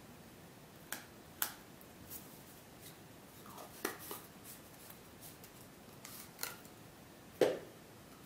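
Scattered light clicks and taps of hand tools and small objects being picked up and set down on a workbench. The loudest is a single knock near the end.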